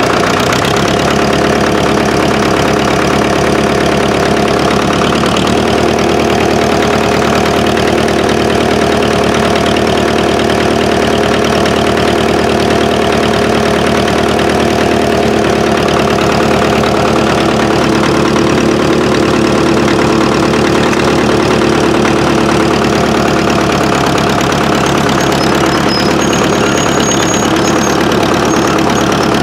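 Engine of a 1955 International TD6 crawler, a diesel that starts on gasoline, running steadily at low speed. Its note shifts slightly about half a second in and again around five seconds in.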